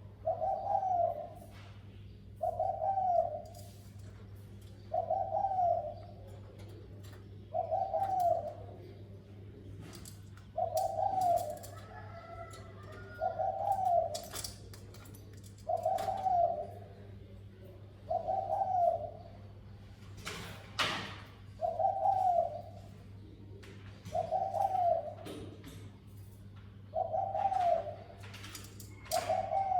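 Spotted dove cooing its repeated call, one phrase about every two to two and a half seconds. Under it run a low steady hum and scattered sharp clicks.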